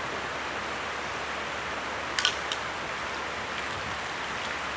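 Steady rush of flowing floodwater, with a couple of light clicks a little over two seconds in.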